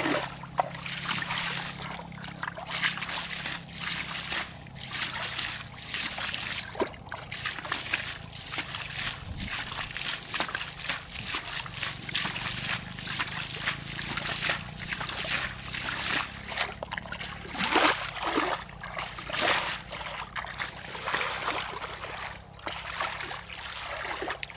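Bare feet treading and stirring through shallow muddy water: repeated irregular splashes and squelches, over a faint steady low hum.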